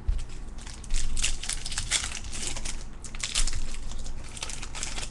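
Baseball card pack wrapper crinkling and tearing as a pack is opened: a dense run of quick crackles that gets louder about a second in.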